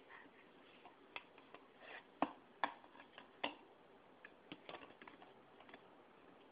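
A wooden spoon and plastic bowls knocking together as a baby plays with them: a dozen or so light, irregular taps and clacks.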